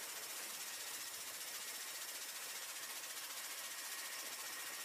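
Faint, steady high hiss with a thin, steady tone in it, unchanging throughout.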